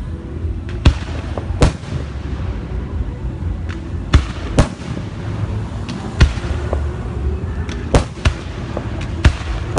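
Assorted fireworks going off: about eight sharp bangs at irregular intervals, two of them close together near the end, over a continuous low rumble.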